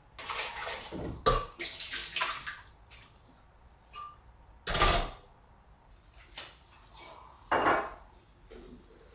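Water swished around inside a blender jug and emptied out as it is rinsed, twice in the first couple of seconds. About five seconds in comes a louder knock as the jug is set upside down on a wire dish rack, and there is another short noise near the end.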